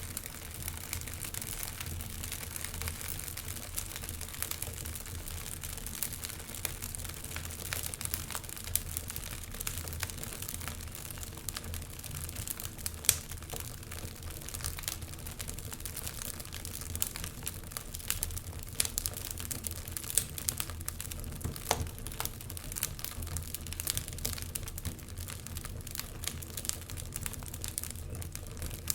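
Wood fire crackling in a fireplace: a steady run of small snaps and pops, one sharper pop about halfway through, over a low steady rumble.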